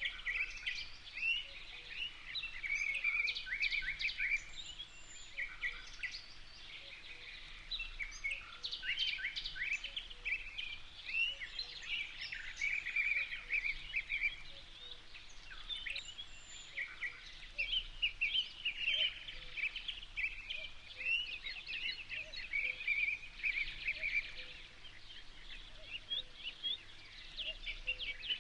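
Many birds chirping and calling together in a dense chorus of short chirps and quick trills, overlapping without pause.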